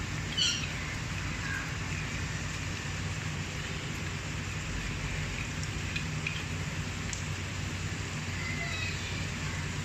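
Chicken and vegetables sizzling in hot oil in a pot: a steady frying hiss with a few light ticks and a brief sharp sound about half a second in.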